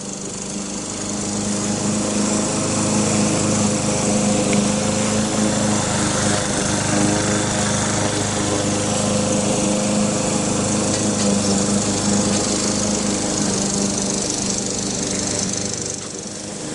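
Geothermal well-drilling rig's engine running steadily under load, growing louder over the first two seconds and dipping briefly near the end.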